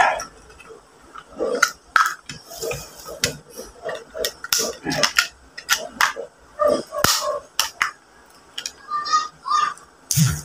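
Close-miked eating of mud crab: wet chewing and sucking of meat from pieces of shell, with sharp clicks and cracks of shell scattered irregularly throughout.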